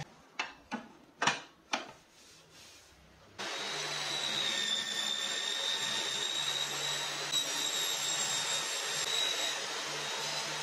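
Four or five sharp knocks, then about three and a half seconds in an electric power-tool motor starts suddenly and runs steadily at a constant high whine.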